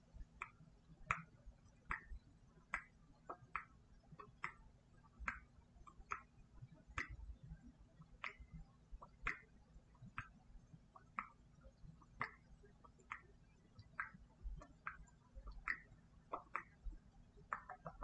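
Mouth clicks and pops made with the tongue and lips right up against a microphone: a steady run of short, sharp clicks about one or two a second, coming faster near the end.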